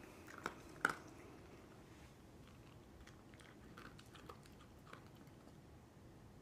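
Shiba Inu eating dry kibble from a bowl, crunching pieces, with two loud crunches about a second in and fainter, scattered crunches after.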